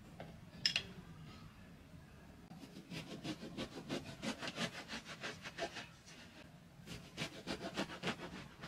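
A knife sawing through a large round loaf on a wooden board: quick back-and-forth strokes through crust and crumb, about five a second, in two runs with a short pause about six seconds in. A single sharp tap comes about a second in.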